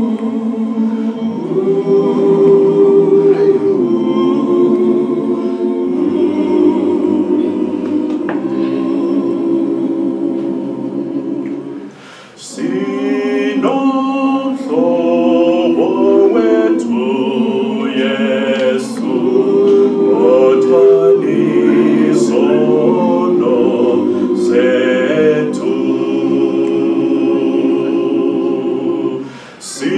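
Male a cappella choir singing a gospel song in close harmony, holding long chords, with a brief break between phrases about twelve seconds in and again near the end.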